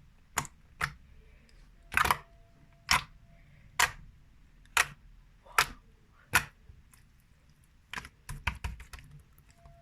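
Clear jelly slime being squeezed and poked by hand, making sharp clicks about once a second, then a quick run of several clicks near the end.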